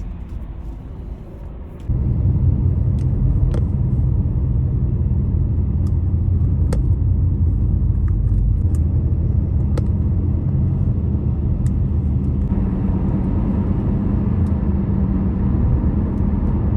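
Car cabin noise while driving: a steady low engine and road rumble. It jumps sharply louder about two seconds in, with a few faint clicks over it.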